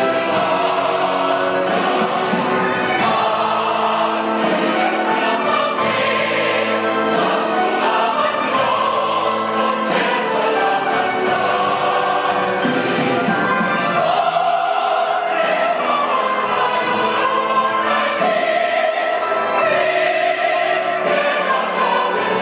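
A chorus of many voices singing with orchestral accompaniment, in a stage-musical or operetta style.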